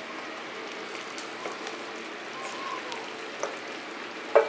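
A pan of chicken masala simmering with a steady, soft sizzle, with a few faint clicks as boiled cassava is added to it.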